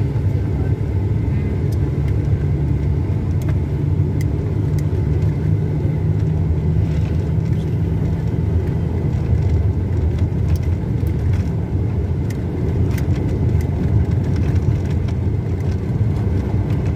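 Steady road and engine rumble heard from inside a moving car's cabin, with a few faint scattered ticks.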